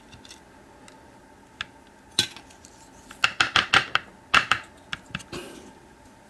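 Small metal clicks and rattles from a gutted Stanley steel padlock and its tiny pin springs being tipped out of the pin chambers: a single click about two seconds in, then a quick run of clicks in the middle and one more near the end.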